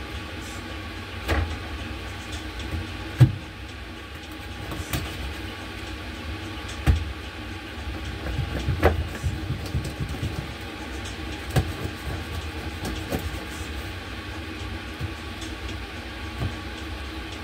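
Irregular knocks and clatter of food preparation at a kitchen counter, over a steady low rumble.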